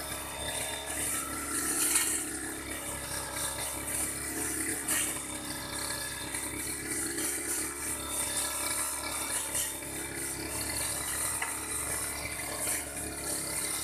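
Old Aldo grass-cutting machine (brush cutter) running steadily while cutting grass, its engine holding an even pitch over a high hiss.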